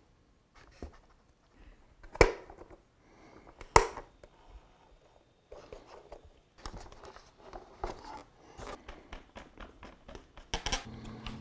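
Workbench handling sounds from fitting parts of a foam RC jet together: two sharp knocks about two and four seconds in, then a run of light clicks and taps as the wing is fitted to the fuselage and a screw is driven with a screwdriver.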